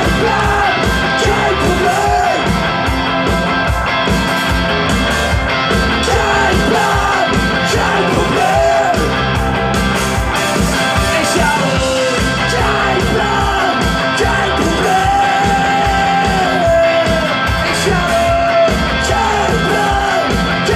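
Punk rock song by a full band: electric guitars, bass and a drum beat, with a sung lead vocal.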